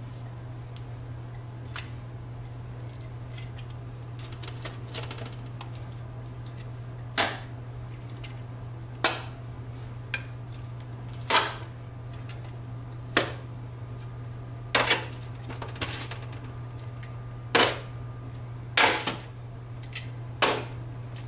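Metal kitchen tongs clinking against a plate as pieces of chicken are set down, about ten sharp clinks a second or two apart, most of them in the second half. A steady low hum runs underneath.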